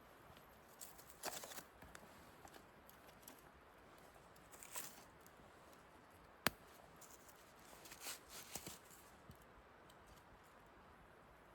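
Near silence broken by a few faint rustles and scrapes of handling, with one sharp click about halfway through.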